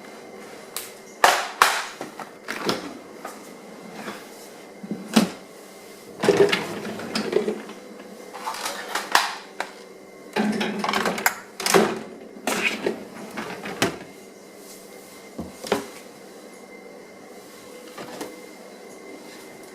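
Irregular clicks, knocks and clatter of a computer keyboard being handled and loaded into a dishwasher, over a faint steady hum.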